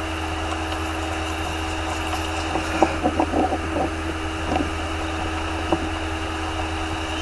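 Steady low hum and hiss, like a fan or air conditioner running, with a few faint short sounds around the middle.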